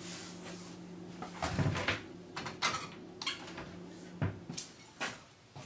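A series of light knocks and clinks as a plate is handled and a kitchen cupboard door is pushed shut.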